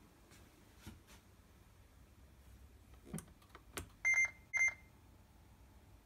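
A Hitachi BD-V3200 washer-dryer's control panel gives two short, high electronic beeps about four seconds in, a second after a few soft clicks of its buttons being pressed, as the machine is switched on.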